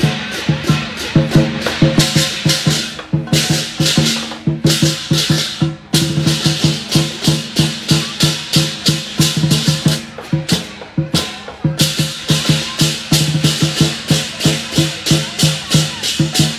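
Lion dance percussion: a drum beating a steady rhythm of about four strokes a second, with cymbals clashing on the beats. The cymbals drop out for a moment a few times.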